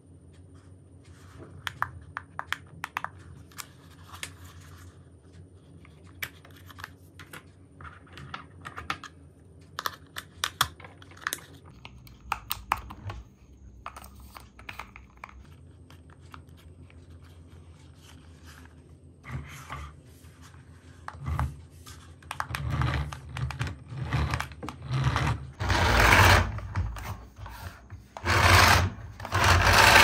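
Plastic clicks, snaps and rattles from handling a toy RC car's steering-wheel remote. In the last several seconds, the toy car's small electric motor whirs in a run of short bursts that grow louder toward the end.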